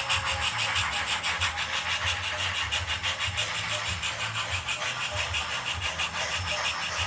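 HO-scale model steam locomotive running on the layout track, a steady low motor hum under a rapid, even rhythmic ticking.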